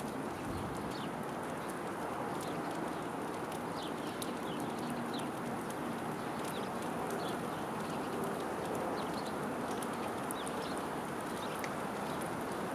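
Small birds giving short, high chips scattered throughout, with faint sharp clicks, over a steady low rushing background noise.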